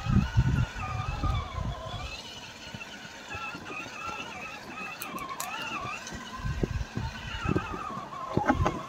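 Electric motor and gear drivetrain of an RGT Intruder EX86020 RC crawler whining, its pitch wandering up and down with the throttle as the truck drives. Low thumps and rustling during the first two seconds and again near the end, with a few faint clicks in the middle.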